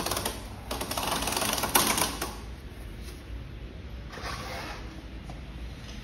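Rapid metallic clicking as a pedal is tightened onto an e-bike's crank arm: one dense spell of about two seconds, loudest near its end, then a shorter one near the four-second mark.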